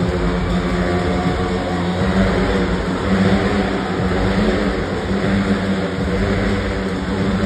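Several motorcycle engines revving together as the bikes circle inside a steel-mesh globe of death, a steady, overlapping engine drone with no let-up.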